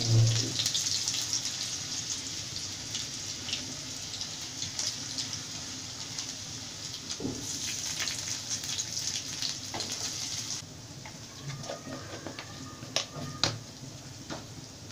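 Hot oil sizzling and crackling in a karahi as chopped garlic fries, starting with a knock. About ten seconds in, the sizzle drops sharply as more vegetables go into the pan, and a few sharp clicks follow near the end.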